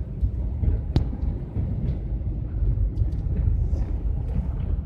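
GAZelle van driving in traffic, its engine and tyre noise heard from inside the cab as a steady low rumble. A single sharp click about a second in.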